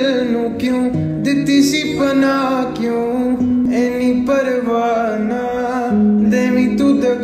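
Background music: a song passage with plucked guitar.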